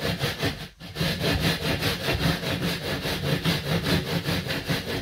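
Rapid back-and-forth scraping of a tool over a dry-pack sand-cement mortar bed while the shower base is screeded and compacted, about eight strokes a second with a brief break just under a second in.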